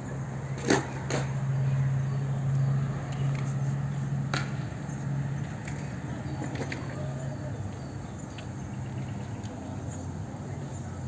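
Open-air market background: a steady low hum, faint voices and three sharp clacks, two about a second in and one at about four and a half seconds.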